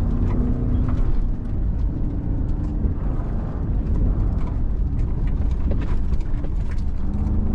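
2017 Ford Raptor's twin-turbo V6 running under varying throttle while driving off-road, heard from inside the cab, its note rising and falling. Scattered knocks and rattles from the truck jolting over rough, muddy ground.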